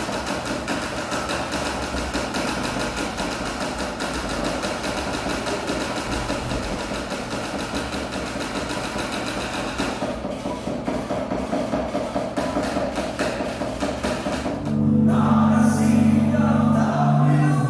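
Electric guitar being practised with fast, even picking, a rapid run of notes during a warm-up. About fifteen seconds in it gives way to louder live concert music with heavy sustained low notes.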